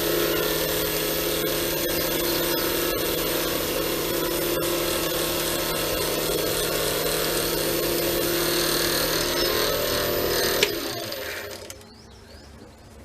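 Small belt-driven wood lathe running steadily with its motor humming, then switched off near the end with a click and winding down.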